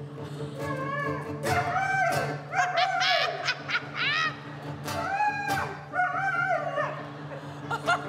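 Acoustic guitar strummed steadily while a dog barks along in a run of short pitched notes that arch up and down, one or two a second.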